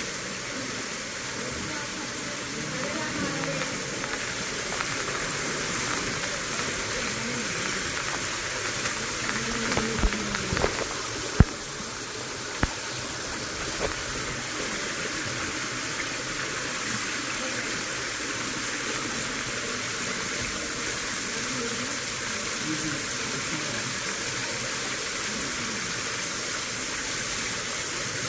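Stream water rushing steadily down a rocky gorge bed, with indistinct voices. A few sharp knocks near the middle.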